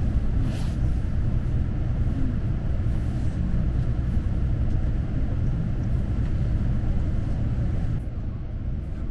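Steady low rumble of a KTX-EUM electric high-speed train, heard from inside the passenger cabin as it runs into a station. There is a brief hiss about half a second in, and the noise eases a little near the end.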